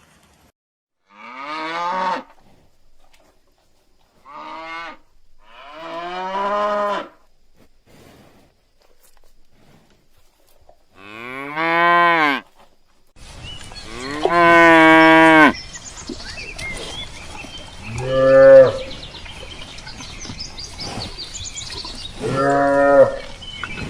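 Cattle mooing: about seven separate calls, each a second or two long, some rising in pitch. About halfway through, the recording changes to one with a steady background hiss and faint high chirping behind the moos.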